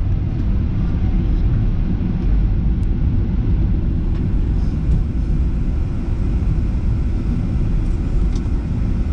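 Steady low rumble of a Boeing 737-800 airliner, with no change in pitch or level.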